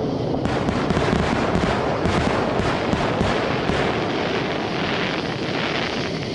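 Aerial fireworks finale: a rapid barrage of shell bursts, several bangs a second over a continuous rumble and crackle, thinning out near the end.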